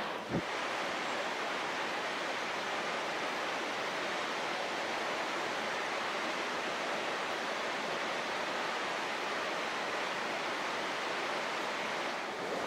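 Steady, even rushing of a creek flowing through the gorge below. A single light knock comes just after the start.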